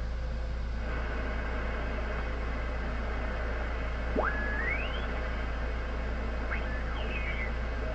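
Yaesu HF transceiver receiving on the 10-metre band: steady band-noise hiss from its speaker as the dial is turned. About four seconds in, a whistle slides sharply upward, and two shorter rising whistles follow near the end as the tuning sweeps past signals. A steady low hum runs underneath.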